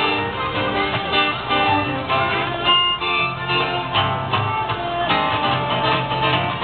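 Acoustic band music: plucked guitar with fiddle, playing in a steady rhythm.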